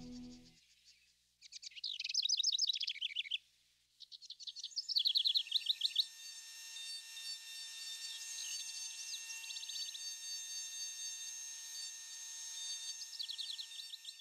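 Songbirds singing: several quick trills of rapid repeated high notes, with a steady high hiss holding thin steady tones from about five seconds in.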